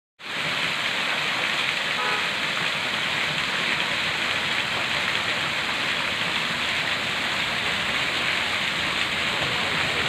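Small waterfall, a thin stream splashing onto rocks in a pool: a steady rush of falling water.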